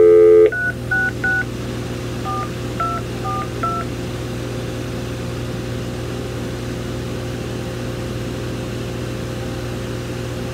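Panasonic KX-TGF570 cordless phone on speakerphone: the dial tone cuts off about half a second in and seven touch-tone (DTMF) digits are dialed, three quickly, then after a short pause four more. An open line with steady hiss follows while the call connects.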